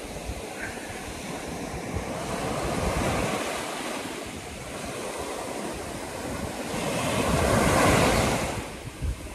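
Small Mediterranean waves breaking and washing up a sandy beach in a steady hiss of surf, swelling to its loudest as a wave breaks near the end. Wind buffets the microphone underneath with an uneven low rumble.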